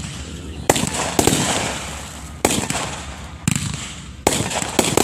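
Fireworks bursting in quick succession, about six sharp bangs in five seconds, each trailing off in a decaying rumble and crackle.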